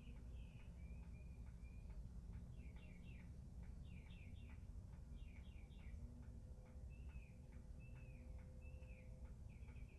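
Birds chirping faintly: clusters of quick repeated notes and a few down-slurred calls, over a steady low rumble.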